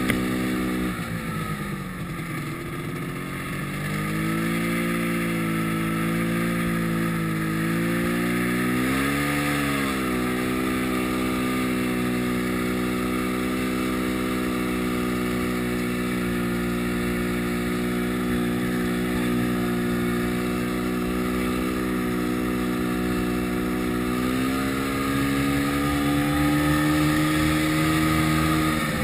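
Yamaha snowmobile engine running under way. Its pitch sags about a second in, picks up again around four seconds, holds steady through the middle, then climbs near the end before easing off.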